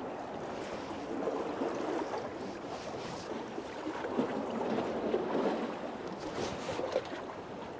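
Sea water washing and lapping against the pier, a steady rushing sound, with a few light knocks about six to seven seconds in.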